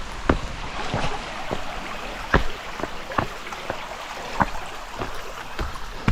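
Footsteps of a hiker walking at a steady pace, about two steps a second, over a steady rush of a nearby creek.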